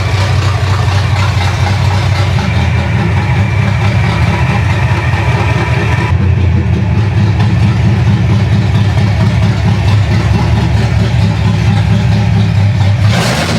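Rebuilt Chevrolet 305 small-block V8 idling steadily and loudly, just after its ignition timing has been set. A short rush of noise comes near the end.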